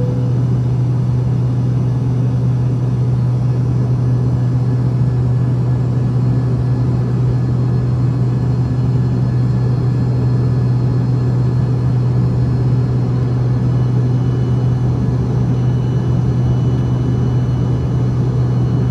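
Steady low drone inside an airliner cabin: a constant deep hum from the engines and air systems with an even rush over it, not rising or falling.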